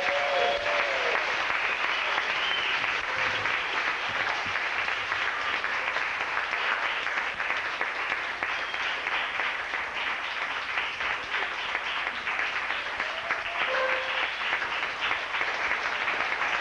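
Audience applauding steadily after a performance, starting abruptly and holding at an even level throughout, with a few short shouts from the crowd.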